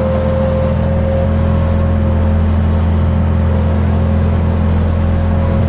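Skid steer loader engine running steadily under way, heard from the operator's seat, with a steady high whine over it.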